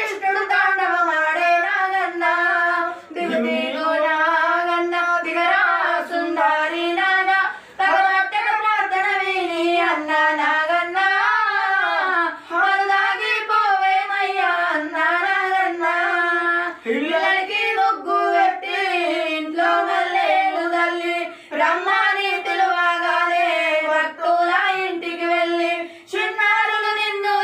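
A woman singing a devotional song unaccompanied in a high voice: one wavering melodic line with short breath pauses every few seconds.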